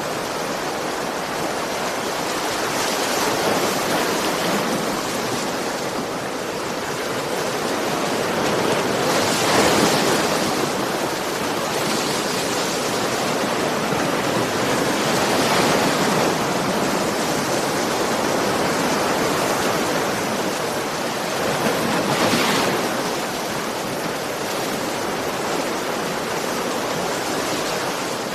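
Ocean waves breaking and washing on a shore: a steady rush of surf that swells into a louder wash about every six or seven seconds.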